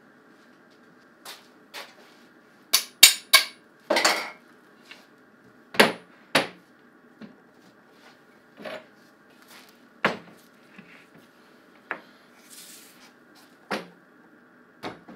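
Steel pipe clamps knocking and clanking on a wooden workbench as they are laid out and adjusted. There is a quick run of loud knocks about three seconds in, another pair about six seconds in, then lighter single knocks roughly every second or two.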